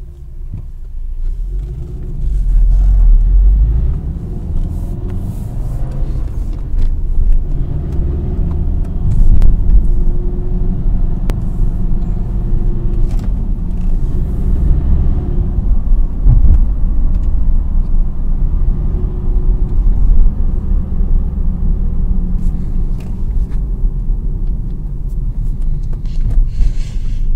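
Turbocharged car driving, heard from inside the cabin: a steady low engine and road rumble with faint irregular ticks, around the time the owner is chasing a rattle-and-grinding noise after fitting a Stage 3 DXD clutch, which he suspects is the clutch hydraulic line knocking against the chassis leg.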